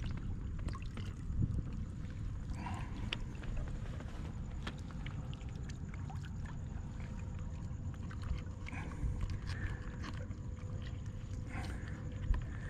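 Water sloshing in a low, steady rumble along a rocky shoreline, with scattered small clicks and taps as hands work a lure's hook out of a landed snook's mouth.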